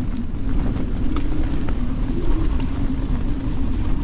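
Strong wind buffeting a Tarptent Scarp 1 tent, heard from inside: a constant rumble with a wavering drone and small flaps and ticks as the flysheet is pushed in against the inner tent.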